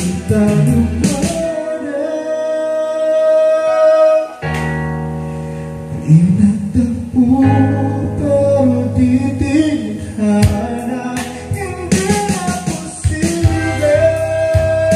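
Karaoke song playing from a Platinum Reyna SE karaoke player: a guitar-led backing track with a sung melody over it and a steady bass.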